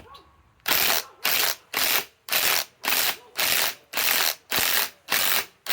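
Ryobi PSBIW25 compact cordless impact wrench hammering in short trigger bursts, about ten of them at nearly two a second, starting under a second in. It is working a stuck lag screw back out.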